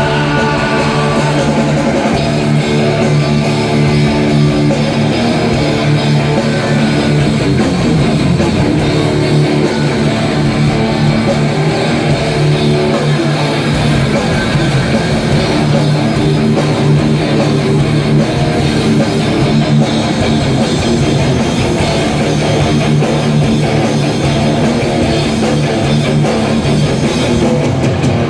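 Live rock band playing loudly: electric guitars over bass and a drum kit, with no singing.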